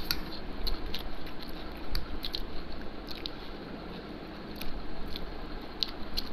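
Two people eating spicy ramen noodles with forks: chewing and slurping, with scattered short clicks of forks against plates.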